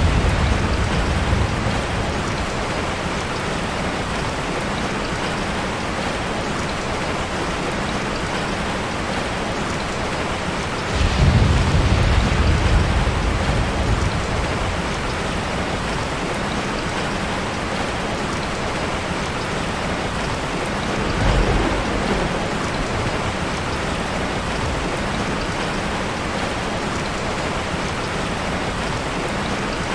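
Steady heavy rain hissing on a surface, with rolls of thunder rumbling low: one fading out just after the start, a longer one about a third of the way in, and a brief one about two-thirds through.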